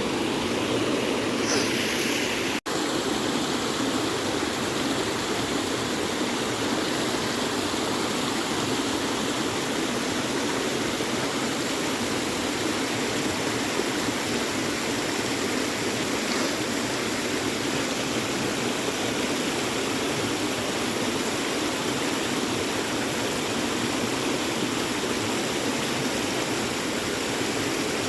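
Creek water rushing and babbling steadily, the stream running full after rain. The sound drops out for an instant about two and a half seconds in.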